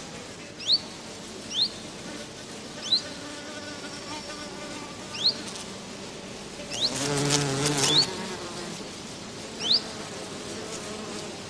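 A flying insect buzzing, loudest about seven seconds in. Short high rising chirps come every second or two.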